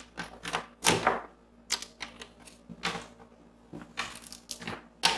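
A coiled plastic power cord being unwound by hand: a string of short, irregular clicks and rattles as the cable and its plug knock about.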